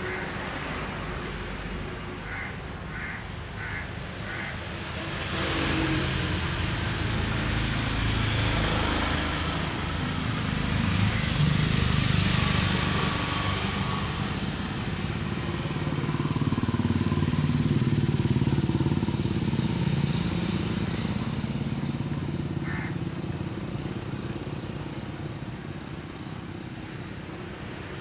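A motor engine running with a low hum, growing louder from about five seconds in and fading over the last several seconds, as a passing vehicle would. A few short, sharp sounds come near the start and one more about three-quarters of the way through.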